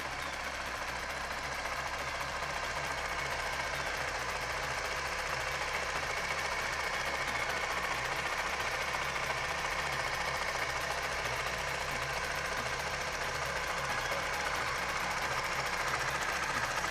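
Suzuki GSX-S125's single-cylinder four-stroke engine idling steadily, getting a little louder near the end.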